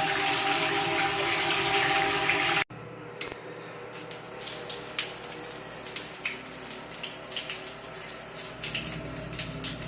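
Water rushing from a pipe over a steady machine hum during a water-pipe flush. About two and a half seconds in it cuts off abruptly, giving way to quieter running water with scattered splashes and drips.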